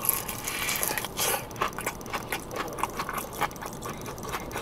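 Close-up biting and chewing of a crispy, juicy fried chicken wing: irregular crunches of the fried crust with wet mouth sounds, the loudest crunch at the very start.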